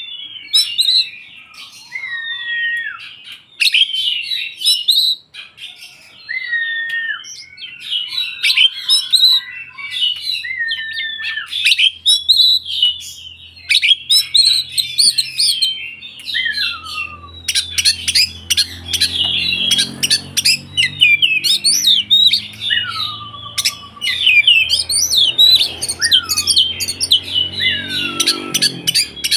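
Oriental magpie-robin (kacer) singing without pause: a varied song of clear falling whistles mixed with rapid chattering and scratchy notes. A low steady hum joins in the background about halfway through.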